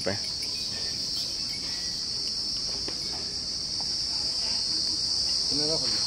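A chorus of insects shrilling steadily at a high pitch, without a break.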